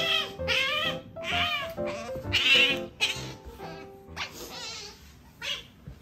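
Asian small-clawed otter giving a string of about seven short, high-pitched squeaking calls.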